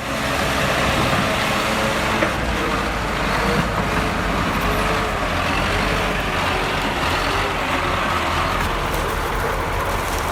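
Heavy diesel engines of a mired Kamaz logging truck and a TDT-55 tracked logging tractor running hard under load during the recovery, a steady loud drone with a slightly wavering pitch.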